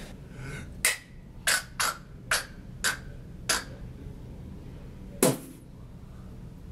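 A person making sound effects: six sharp clicks or knocks in quick, uneven succession, then a single louder, deeper knock a moment later.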